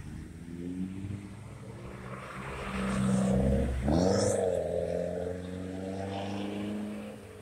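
Cars driving past on a multi-lane road. The traffic noise builds up as one car passes close by about four seconds in, its engine note dropping as it goes past, and then fades.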